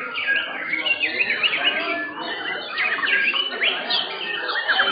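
White-rumped shamas singing in a songbird contest, several birds at once: a dense, overlapping stream of quick whistled notes and chirps that sweep up and down in pitch.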